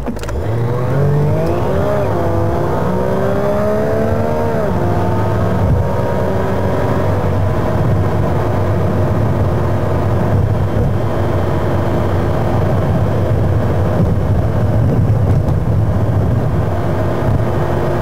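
Car engine and tyre noise heard from inside the cabin, sped up about 2.25 times. The engine pitch climbs with a wobble for the first few seconds as the car gathers speed, drops at about four and a half seconds, then holds a steady drone while cruising.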